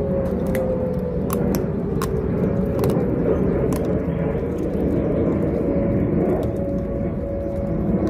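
Outdoor tornado warning siren sounding a steady tone over a heavy low rumble, with scattered sharp crunching clicks of a puppy chewing a raw chicken leg.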